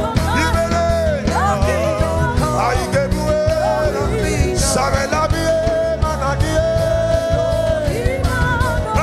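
Live gospel worship music: a man sings into a microphone, with a woman's backing voice, over a band playing a steady beat.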